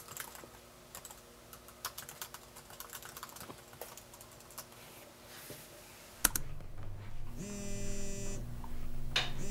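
Typing on a computer keyboard: irregular key clicks for about six seconds. Then a single sharp click, after which music with steady sustained tones begins.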